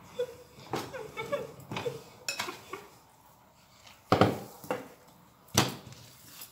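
Wooden rolling pin working dough on a silicone mat, with soft scattered knocks and rubbing. Two sharp knocks come about four and five and a half seconds in, as the pin is set down and the dough is handled.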